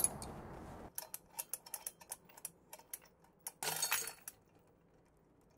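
Rapid, irregular small clicks and creaks from a hook-and-shackle rig under a digital crane scale as an annealed PLA 3D-printed test hook takes the load. About three and a half seconds in there is a louder, brief rattling snap as the hook breaks.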